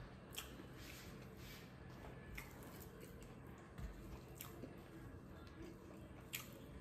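Faint close-up chewing of smoked pork and rice, wet mouth sounds with a few short sharp clicks spread through.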